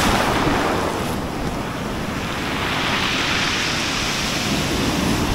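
Sea surf washing in on the shore: a steady rush of breaking waves that swells a little about halfway through, with wind buffeting the microphone.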